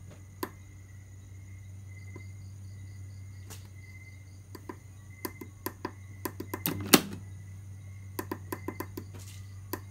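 Small push-buttons on a battery voltage-cutoff relay board clicking as they are pressed, then a loud mechanical clunk about seven seconds in as the relay and automatic transfer switch change over, followed by a quick run of lighter clicks. A steady low electrical hum runs underneath.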